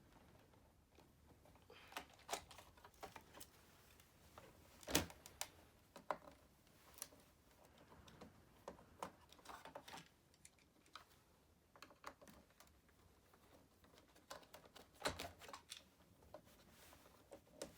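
Scattered light clicks and knocks of hard plastic parts and tools being handled while a Roomba 780 robot vacuum is taken apart, at uneven intervals, with the loudest knocks about five seconds in and again about fifteen seconds in.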